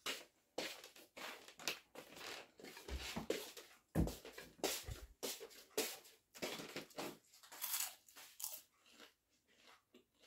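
Crunching and chewing on a crisp deep-fried beef spring roll (lumpia), heard as irregular crackly bites and chews, with a duller thump about four seconds in.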